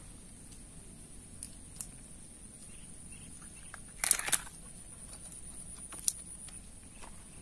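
Handling sounds from unhooking a caught snakehead with pliers: a few faint clicks, then a short loud cluster of sharp clicks and rattles about four seconds in, and one more sharp click near the end. A steady high-pitched whine runs underneath.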